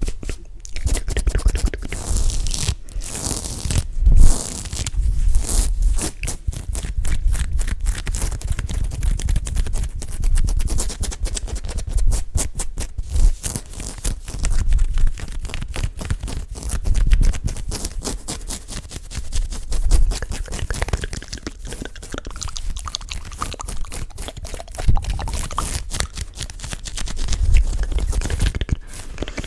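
Close-up ASMR handling sounds on a microphone: hands rubbing, pressing and scratching right at the mic. The result is a dense, irregular crackling with repeated deep thumps as the mic is squeezed and pumped.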